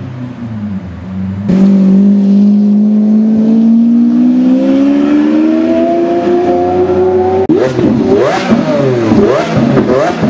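Lamborghini Aventador's V12 engine. About a second and a half in it opens up loud, with one engine note that climbs steadily as the car accelerates away. Near the end it gives quick repeated revs, rising and falling over and over, with the car standing still.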